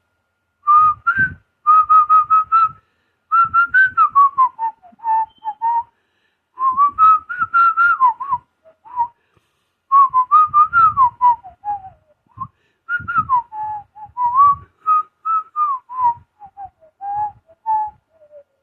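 A person whistling a tune in short phrases, the melody stepping and gliding up and down with brief pauses between phrases.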